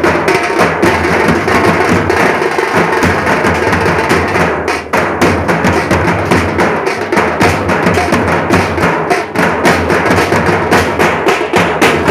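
Nashik dhol band drumming: large dhol drums and tasha beaten in a loud, fast, dense rhythm, with a brief dip in the beat about five seconds in.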